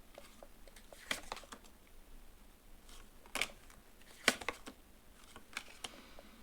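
Tarot cards being handled on a table: a handful of sharp clicks and taps at irregular intervals, the loudest about four seconds in, with fainter ticks between.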